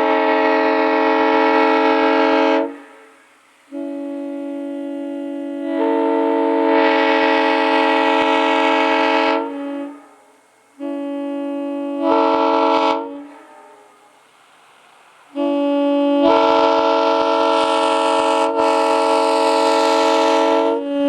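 Nathan M3 three-chime locomotive air horn, an ex-Grand Trunk scallop-base unit, sounding four long blasts of its chord, some opening softly before swelling to full. The chord is out of tune, which the owner describes as an M3 gone flat from not being tuned.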